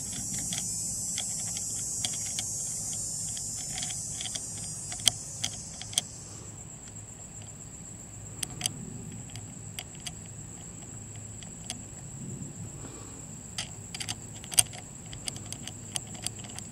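Small sharp metallic clicks and taps, irregular and scattered, as a steel socket-head cap screw is handled and turned into the barrel-mounting block of a stainless steel rifle receiver. A steady high-pitched hiss runs underneath and narrows to a thin tone partway through.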